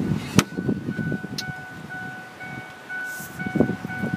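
A pickup door latch clicks open, and right after it the truck's electronic warning chime starts, a steady thin high tone that keeps sounding, over low handling and footstep noises.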